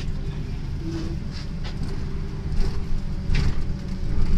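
Cabin noise inside a BKM 32102 trolleybus: a steady low rumble with a faint hum, and a couple of brief rattles.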